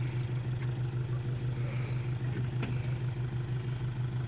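Toyota Hilux pickup's engine running at a steady low idle as the truck creeps backward up a dirt bank, with one sharp click about two and a half seconds in.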